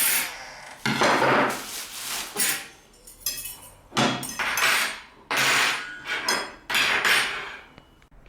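A series of loud bangs and clatters, about eight, irregularly spaced, each starting sharply and dying away within about half a second.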